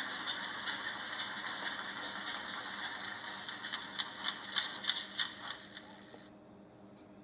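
Model railway mechanism running: a steady whirr with light clicking and ticking, growing fainter and fading out near the end.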